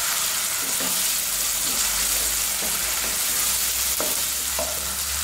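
Chopped onions, green chilies and ginger-garlic paste sizzling steadily in hot oil while stirred with a wooden spatula, with a few light taps of the spatula on the pan near the end. The paste is being fried to cook off its raw smell.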